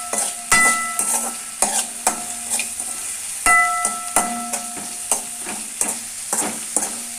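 Spatula stirring and knocking against a pan, several knocks leaving the pan ringing briefly, over the steady sizzle of onions, tomatoes and curry leaves frying in oil.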